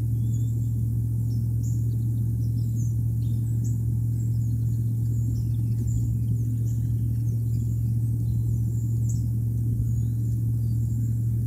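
Steady low hum with a rumble beneath it, with faint short high-pitched chirps scattered throughout.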